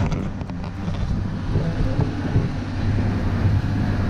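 Open-sided zoo road train driving along: a steady low drone from its motor, with rumble and wind on the microphone.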